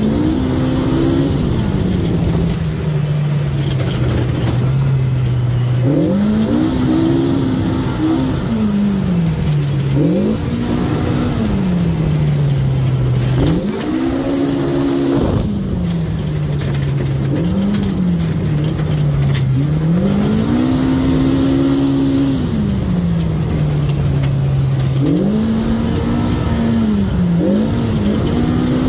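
Polaris RZR side-by-side's engine driving a rough dirt trail, its pitch climbing and easing off again every few seconds as the throttle is worked, over a steady rushing noise.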